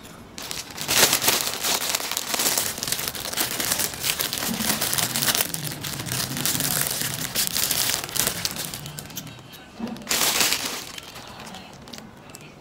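Thin plastic bread bag crinkling and rustling as a hand reaches inside and pulls out bread: a long stretch of several seconds, then a short burst again near the end.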